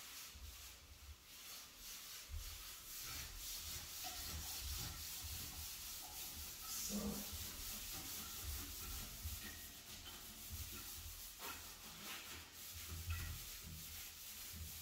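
Scrubbing on a shower's surfaces: irregular rubbing strokes with no steady rhythm.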